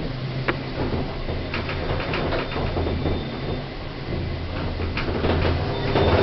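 Modernised 1980s Thyssen lift with its doors sliding, a few clicks and knocks over a steady low hum.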